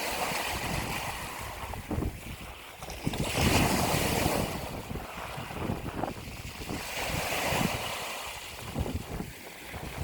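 Ocean waves washing and breaking, a steady hiss of surf that swells in two louder surges, about three to four seconds apart.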